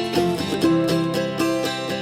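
Background music: quick plucked string notes, mandolin- or banjo-like, with a steady rhythm.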